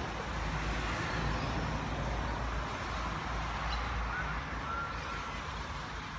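Steady outdoor background rumble and hiss, with a couple of faint short chirps about four to five seconds in.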